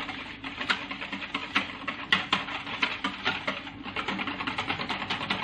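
Yogurt being beaten by hand in a large plastic bowl: a fast, even run of light clicks and wet scrapes as the utensil strikes the bowl's side over and over.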